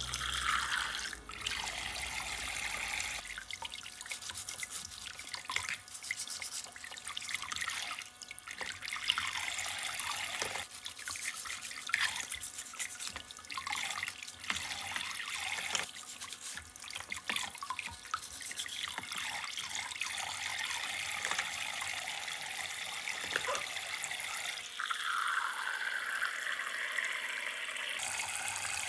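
Water trickling and splashing into a small basin, with many scattered drips throughout.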